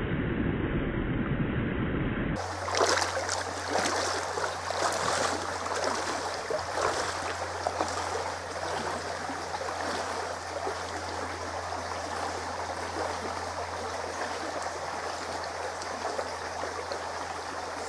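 Shallow stream running over its bed, with irregular sloshing splashes for several seconds after a cut about two seconds in, as someone wades in the water. Before the cut, a short muffled rumble.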